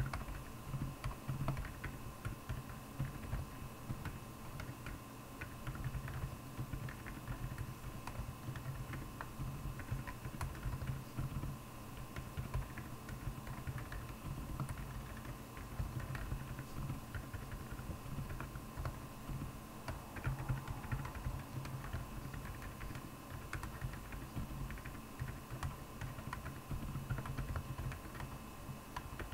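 Continuous typing on a Royal Kludge R75 mechanical keyboard with Akko Penguin silent tactile switches: a steady stream of rapid keystroke clicks over a steady hum.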